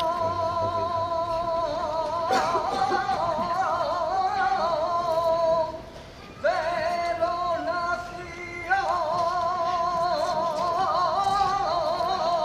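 A male voice singing a saeta in flamenco style, unaccompanied, in long ornamented phrases with heavy vibrato, with a brief break for breath about six seconds in.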